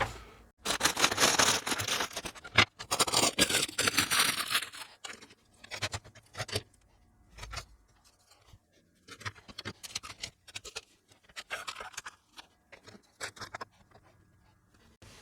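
Bags of plastic kit parts rustling as they are opened and emptied, then scattered clicks and rustles as the small pieces are handled and laid out.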